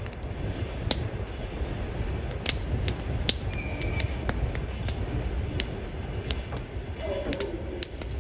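Wood fire crackling, with irregular sharp pops of burning wood over a steady low rumble.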